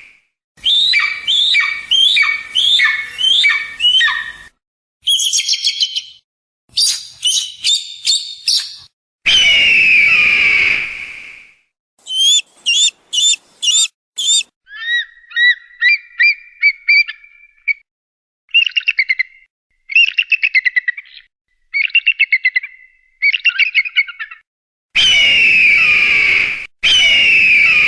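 A string of recorded eagle calls separated by short gaps: runs of quick, high, falling whistled chirps and rapid trills, and three long, harsh screams, one near the middle and two near the end.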